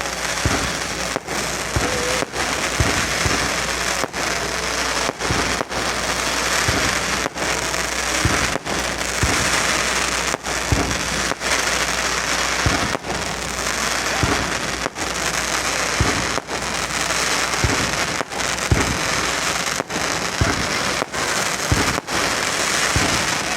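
Aerial fireworks going off in a continuous barrage: a dense crackle of bursting stars over scattered low booms.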